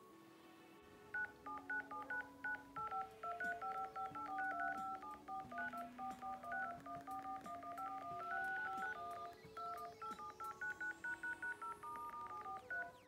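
iPhone 13 Pro Max dial-pad keypad tones: rapid touch-tone beeps, several a second, as a long number is tapped in. Each press sounds two tones at once. The run starts about a second in and stops just before the end.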